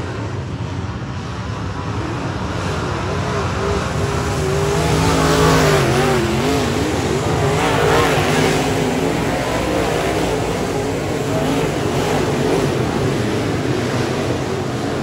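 A pack of dirt-track modified race cars racing past, many engines revving up and down through the turn. The sound swells a few seconds in and is loudest as the pack goes by, then stays loud as the field carries on around the track.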